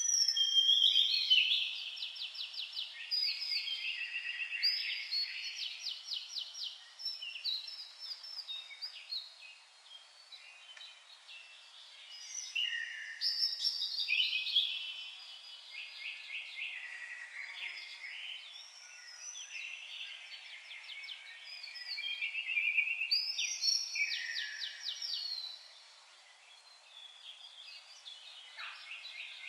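Songbird singing long, varied phrases made of fast trills and chirps, in several bursts lasting a few seconds each with short quieter gaps between them.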